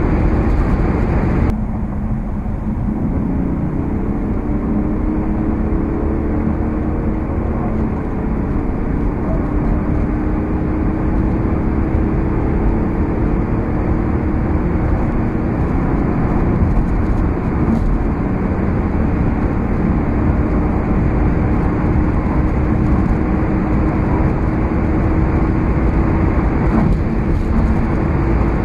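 Inside the cabin of a BMW 740d at high Autobahn speed: steady wind and road noise with the drone of its twin-turbo straight-six diesel. About one and a half seconds in the sound thins as the car backs off. Then the engine note climbs slowly as it accelerates again in a high gear.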